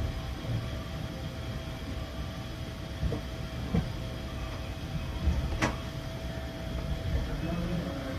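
Steady hum of a 285-series sleeper car standing at a platform, heard from inside the compartment, with a faint steady tone over it and a few soft knocks; the sharpest click comes about five and a half seconds in.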